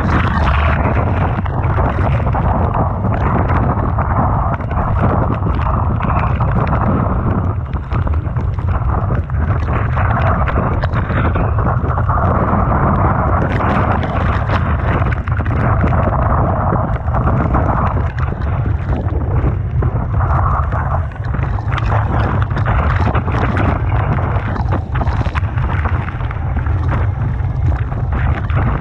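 Typhoon wind buffeting the microphone in a constant heavy low rumble, with irregular gusts, over the noise of rough sea and crashing surf.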